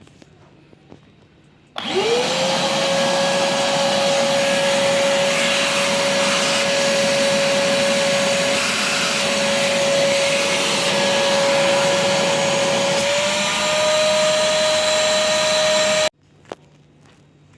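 Fisch MB 10 LT vacuum cleaner switched on about two seconds in, its motor spinning up quickly to a steady high whine over loud rushing air. The pitch rises a little near the end, then it is switched off and cuts out suddenly.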